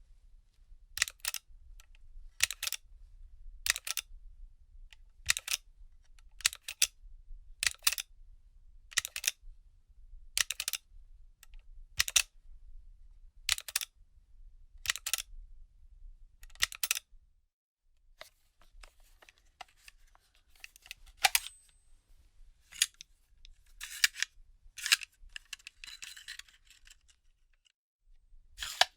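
A gun magazine being handled: pairs of sharp clicks at a steady pace, roughly one every second and a half, for the first half. After a short pause, softer scraping with a few scattered clicks follows.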